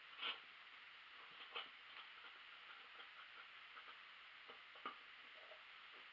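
Scissors cutting through folded stretch fabric: faint, scattered snips and clicks of the blades, one a little louder about a third of a second in and another just before five seconds.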